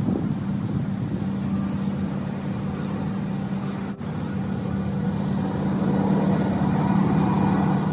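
Steady rumble of road traffic with a constant low hum, dropping out for an instant about four seconds in.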